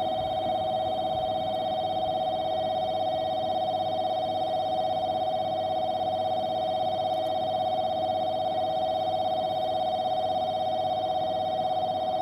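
Electronic railway warning alarm sounding without a break, a steady electronic tone with a fast, even pulse, signalling that a train is approaching the platform.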